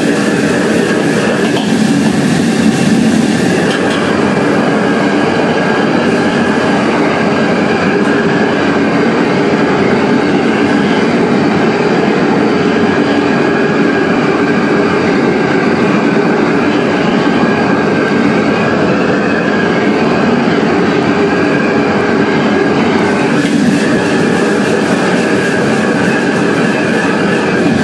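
Steady, loud roar of a fire-fed wok stove burning under a wok while a cook stirs with a ladle. The hiss grows brighter near the end as food sizzles in the wok.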